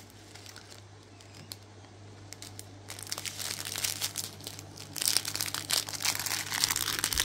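Plastic packets of diamond-painting drills crinkling as they are handled. It is fairly quiet for the first few seconds, then the crinkling grows busier from about three seconds in and is heaviest near the end.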